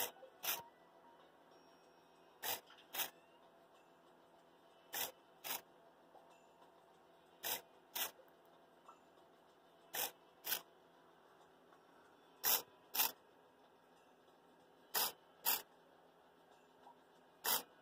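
Hobby servo motor jerking the decoupled displacer of a Stirling engine back and forth under Arduino control: two short, quick moves half a second apart, the pair repeating every two and a half seconds.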